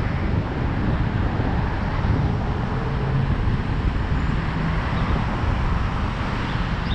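Wind buffeting a helmet-mounted action camera's microphone while riding a bicycle, a steady low rumble mixed with road and city traffic noise.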